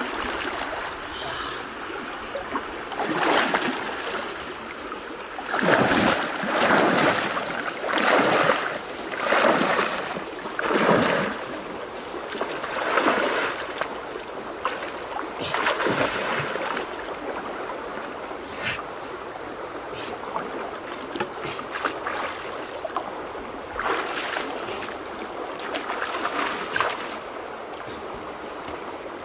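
Water splashing and swishing as a person wades through a shallow, flowing river, with a louder surge at each stride, about one a second in the middle, over the steady rush of the stream.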